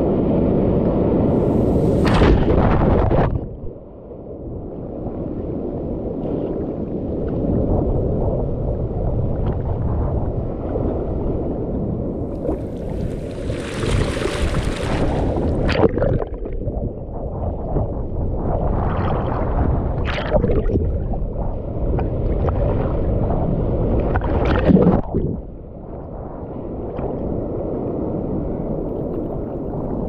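Sea surf washing over a camera held at the water's surface, a dull, muffled churning and gurgling as waves break over it and pull it under. Brief hissing splashes come as crests break, about 2 s in, around 14 to 16 s, around 20 s and about 25 s in.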